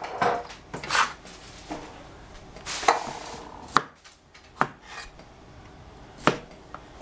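A cleaver chopping on a plastic cutting board: about six separate knocks, irregularly spaced, with some scraping of the blade and the cut pieces between them as eggplant and then a zucchini are cut.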